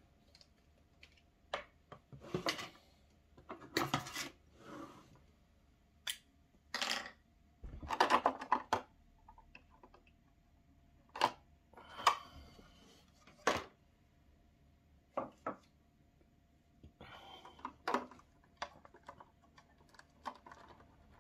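Stiff clear plastic blister packaging being handled and prised apart: irregular clicks, taps and short crackling rustles of the plastic.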